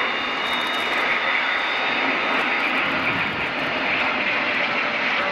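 Jet engine noise from a Boeing KC-767 tanker and two Eurofighter Typhoons flying past together in formation: a steady rushing jet sound with a thin whine over it, swelling slightly midway.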